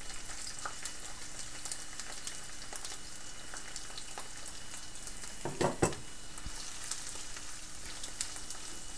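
Sliced bitter gourd (karela) sizzling and crackling in hot oil in a frying pan as a silicone spatula scrapes the pieces off a bowl and pushes them around. A louder scrape and knock against the pan or bowl comes a little past the middle.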